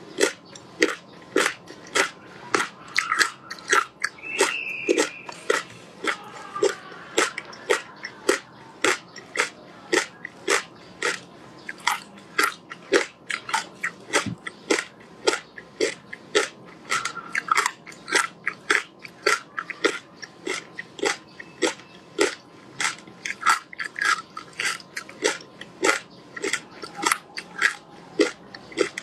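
Close-up crunching and chewing of frozen passion fruit pulp with its seeds: a steady run of crisp crunches, about two or three a second.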